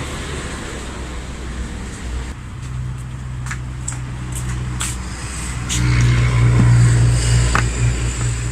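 A motor vehicle's engine running close by, a steady low hum that grows louder about six seconds in and eases near the end, with a few light clicks.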